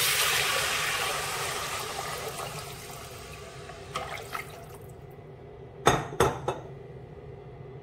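Coconut water pouring from a glass jug into a stainless-steel pot of hot oil with fried lemongrass and garlic. The pouring and sizzling die away over the first three seconds. Then chopsticks stir the broth, with two light clicks about four seconds in and three sharp knocks against the pot about six seconds in.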